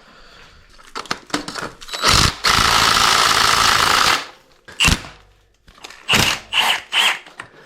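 Impact wrench hammering on a rear-suspension linkage bolt in one burst of about two seconds, trying to break the bolt loose. A few sharp knocks of tools or metal parts follow.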